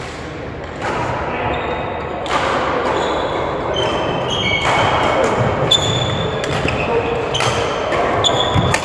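Badminton rally in a large echoing hall: rackets strike the shuttlecock several times, trainers squeak briefly on the court floor, and voices murmur from the other courts.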